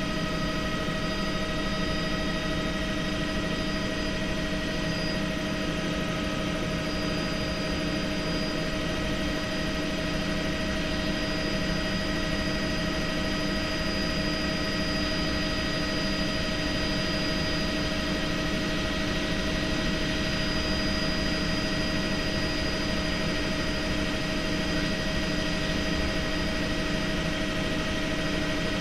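Helicopter in steady flight, heard from inside the cabin: a constant engine and rotor drone with several steady whining tones layered over it.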